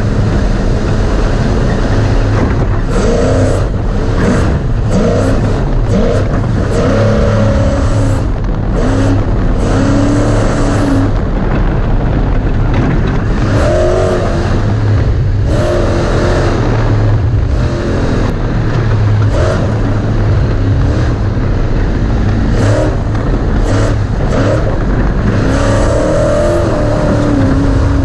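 Class 1450 Ford Ranger race truck's engine running hard, its pitch rising and falling as it revs and shifts, with frequent knocks and clatters as the truck crosses rough dirt.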